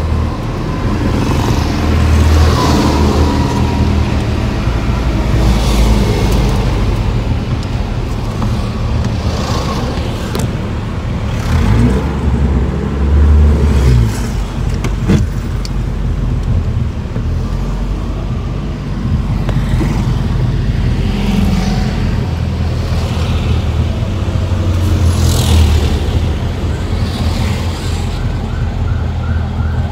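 Car engine and road noise from inside a moving car, a steady low rumble with a few short rising swells. Near the end a siren starts up, repeating about three times a second.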